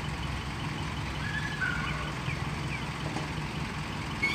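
Heavy diesel machinery engine running steadily at idle. A few short, faint high chirps or beeps come through about a second in and again near the end.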